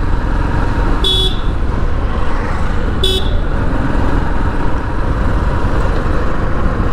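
Bajaj Platina 110 motorcycle running steadily under way, with steady wind rush on the microphone. Two short horn beeps sound, about one second and three seconds in.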